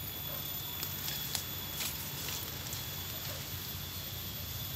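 Footsteps through dry bamboo leaf litter: faint rustling with a few light crackles and snaps, over a steady low rumble.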